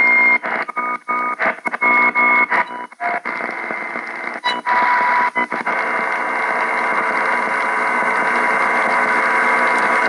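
AM radio being tuned across the upper band through its speaker: for about three seconds, steady buzzy tones cut into short pieces by brief dropouts, then loud static hiss that swells a little and holds.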